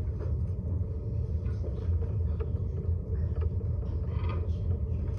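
A steady low rumble, with a few faint, distant voice sounds.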